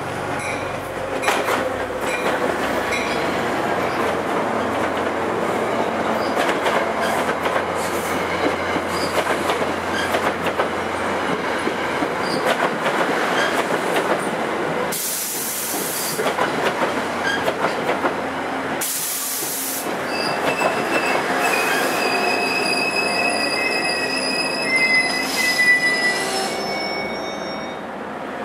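NJ Transit F40PH2-CAT diesel locomotive and its passenger coaches rolling past, with steady wheel and rail noise. Two short bursts of hiss come about halfway through. In the last third, high-pitched wheel and brake squeals sound as the train slows for the station.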